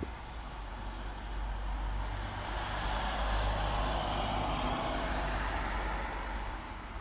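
A vehicle passing by: a rush of road noise that swells to a peak about three and a half seconds in and then fades, over a steady low rumble.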